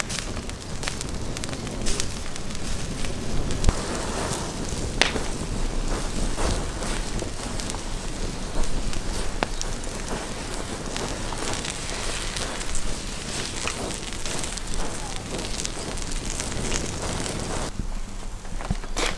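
Hot coals crackling and hissing under whole lamb carcasses roasting over them, with scattered sharp pops. It stops about a second and a half before the end.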